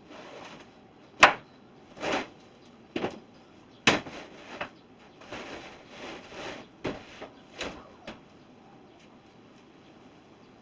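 Wooden knocks and clunks as lumber is handled and set down, the loudest a sharp knock about a second in, followed by several more thuds and softer scraping and shuffling that die away after about eight seconds.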